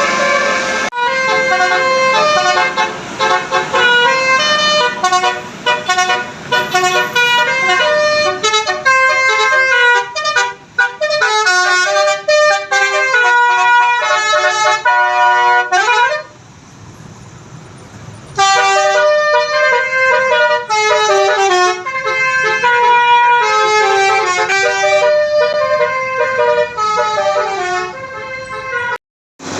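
Telolet musical air horns playing rapid tunes of short stepped notes, several tones at once. About halfway through the horns stop for around two seconds, leaving only engine and traffic noise, and then the tunes start again.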